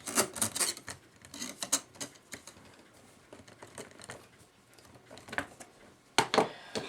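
Small metallic clicks and clatter from a partly let-down mainspring and its antique clock movement being handled, in scattered bursts with a quiet stretch in the middle and the loudest clatter near the end.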